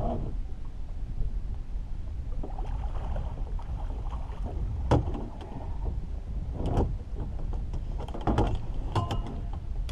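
Several sharp knocks and clatters against the boat as a fish is netted over the side, most of them in the second half, over a steady low rumble.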